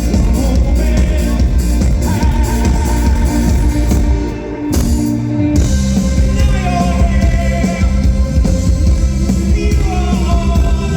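Indie rock band playing live through a concert PA, with singing over drums, bass and synths. About halfway through, the drums and high end drop out for a moment, then the full band comes back in.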